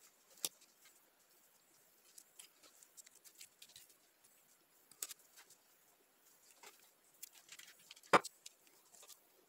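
Faint crinkling and small ticks of paper masking tape being wrapped and pressed around the end of a steel open-end wrench, with a few sharper clicks and one louder knock about eight seconds in.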